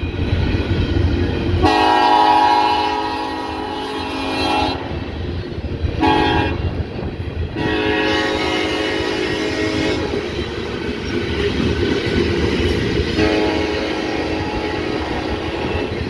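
A Kansas City Southern freight locomotive's multi-chime air horn sounding a salute: a long blast starting about two seconds in, a short one, another long one, then a fourth long blast near the end. Under it, empty covered hopper cars roll past with a steady rumble and clacking of wheels over rail joints.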